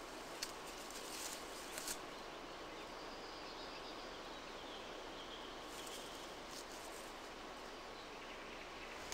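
Faint rustles and short crackles of a stick pushed through tall grass, a few near the start and a few more in the middle, over steady background hiss.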